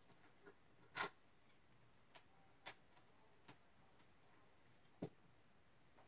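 Near silence with about five faint, irregular clicks and taps, the loudest about a second in, from fingers working a small lump of paper clay while pinching out a beak.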